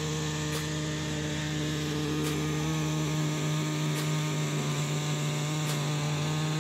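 Air-powered body cutter running at a steady high speed as it cuts through a plastic snowmobile side panel, a constant even drone.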